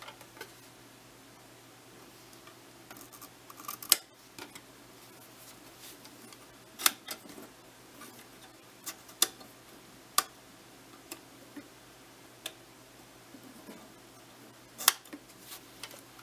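Sharp mechanical clicks from the controls of a 1926 Zeiss Ikon Box Tengor 54/2 box camera as its aperture tab is worked, with softer handling rustle between them. About seven loud clicks come at irregular intervals, spread across several seconds.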